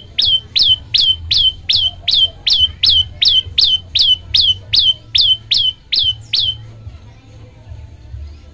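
Prenjak lumut, a prinia, calling one sharp downward-sweeping note over and over, about three a second, then stopping about two-thirds of the way through.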